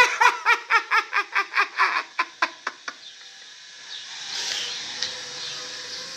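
A voice sounding in quick repeated pulses, about four a second, that fade away over about three seconds. Then faint steady background noise with a thin steady tone.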